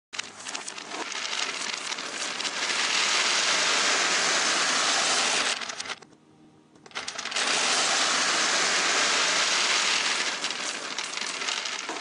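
Hundreds of small plastic beads pouring and rattling out of a plastic toy microwave onto a table, a dense rain of clicks. It breaks off for about a second just past the middle, then starts again.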